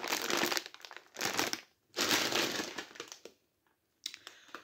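Plastic crisp packets crinkling as they are handled, in three bursts with short pauses between, the longest starting about two seconds in, then only faint rustles.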